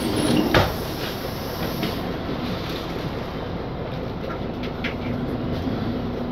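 Cabin noise inside a Mercedes-Benz Conecto G articulated bus moving slowly in traffic: the steady rumble of its OM457LA diesel and running gear. There is one sharp clunk about half a second in, and a few faint rattling ticks later on.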